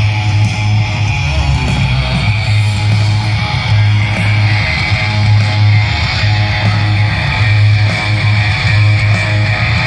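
Live hard rock band playing through a festival PA, heard from far back in the crowd: electric guitar strumming over heavy, pulsing bass.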